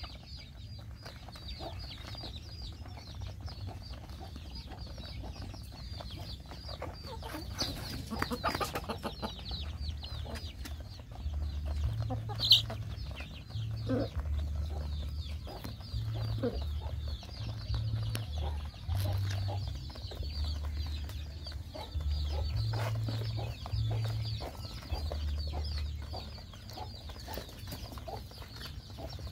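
A flock of young gamefowl chickens foraging and pecking, giving scattered soft clucks and short calls, with one sharper high call about halfway through. Under them runs a steady high-pitched chirring, with intermittent low rumbling.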